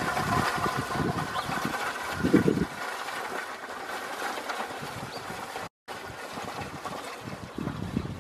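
Wind buffeting the microphone outdoors, a low gusty rumble that peaks about two and a half seconds in and then drops to a quieter steady hiss. The sound cuts out to silence for a moment near six seconds in.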